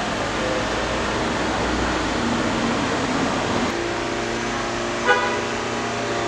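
Street traffic noise from the road below: a steady rush, joined about halfway through by a vehicle engine's steady hum. A short car horn toot sounds about five seconds in.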